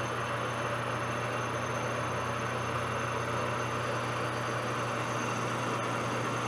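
Steady machine hum with an even hiss behind it, unchanging throughout.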